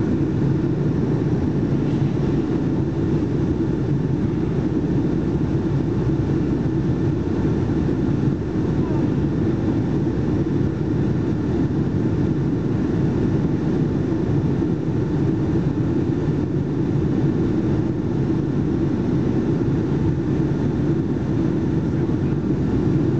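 Steady cabin noise inside a Boeing 757-200 in flight, heard from a window seat behind the wing. It is a constant deep rumble from its Pratt & Whitney PW2037 turbofans and the airflow over the fuselage.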